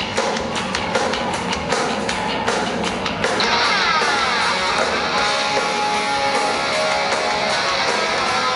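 Live heavy rock band playing loud: distorted electric guitar over drums. The regular drum hits give way about three seconds in to sustained guitar with sliding notes.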